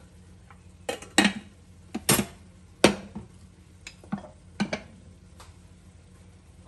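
Cookware clattering: a pot being moved on the hob and a wooden spatula knocking in a wok of stir-fry give a run of sharp knocks and clanks over the first five seconds.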